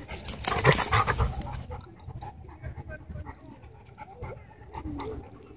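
Dogs panting during rough play at close range. The first second or so holds loud scuffling and knocks, and after that the panting and small scuffs are quieter.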